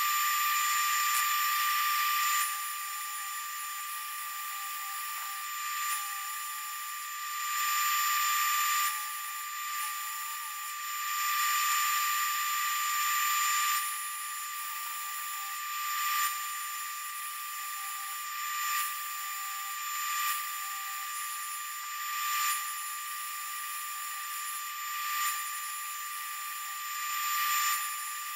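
Corded electric drill with a sanding disc power-sanding a black locust bowl spinning on a lathe: a steady motor whine over a rushing hiss of abrasive on wood, swelling louder every couple of seconds.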